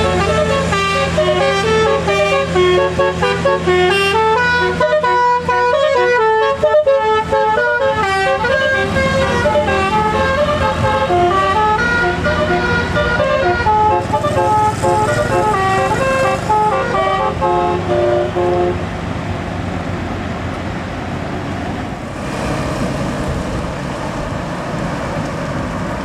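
Telolet multi-tone musical horn playing a fast tune of short stepped notes, which stops about nineteen seconds in. Engine and tyre noise of passing traffic runs under it and is left on its own after it.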